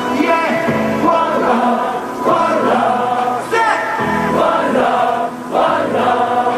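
Live reggae music: a male vocalist singing into a microphone over a DJ's backing track played through PA speakers.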